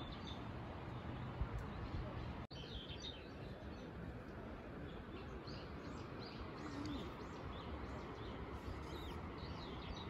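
Songbirds chirping in short, scattered calls over a steady outdoor background hiss. The sound drops out for an instant about two and a half seconds in.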